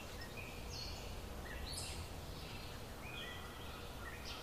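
Outdoor ambience: birds giving short, high chirps and whistles again and again over a steady low rumble.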